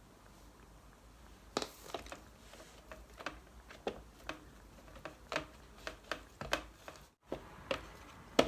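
Irregular light taps and soft pats, about one or two a second, from hands coating veal shank pieces in flour and handling them.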